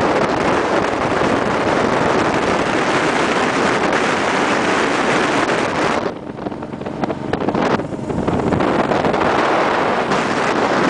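Wind rushing over the microphone of a camera carried on a road bike at speed, loud and steady, easing off for about two seconds past the middle.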